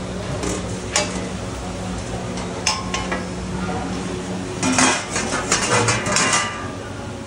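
Metal utensils clinking against a large cooking pot: a few single clinks, then a run of clattering about four and a half seconds in. A steady low hum runs underneath.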